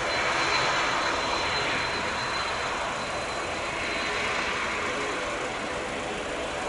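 Jet engines of a Ryanair Boeing 737-800 (CFM56-7B turbofans) running, a steady rushing noise with a thin high whine, slowly easing off toward the end.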